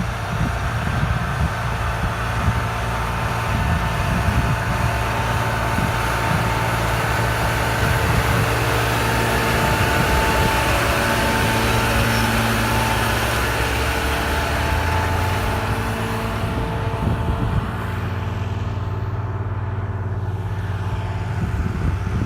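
Engine of a large farm vehicle running steadily, a drone with several held tones; the higher hiss fades about three quarters of the way through.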